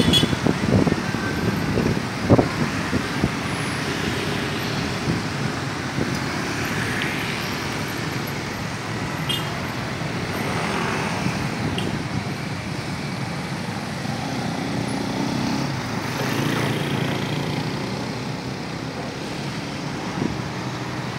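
Mixed road traffic, mostly small motorcycles with some cars, driving past steadily with engines running, and a couple of short knocks in the first few seconds.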